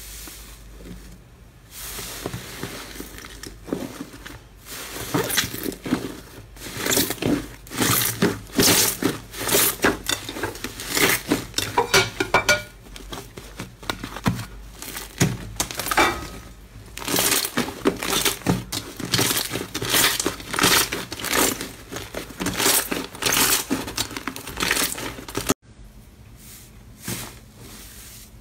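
Slime being pressed, squeezed and kneaded by hand, giving off a dense run of irregular crackling and popping clicks. The sound stops abruptly near the end, then gives way to quieter, sparser pops from another slime.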